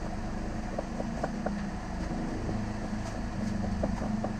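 Light clicks and taps of a plastic pry tool working around a smartphone's frame, heard over a steady low hum.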